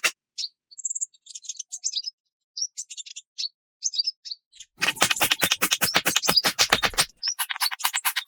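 Birds chirping in short, high calls. About halfway through, a fast rattle of sharp clicks, roughly a dozen a second, runs for about two seconds.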